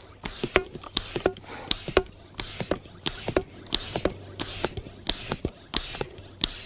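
Hand stirrup pump inflating an inflatable board: steady up-and-down strokes, about three every two seconds, each with a hiss of air and a thin squeak. The board is still filling at zero pressure, so the strokes meet no resistance yet.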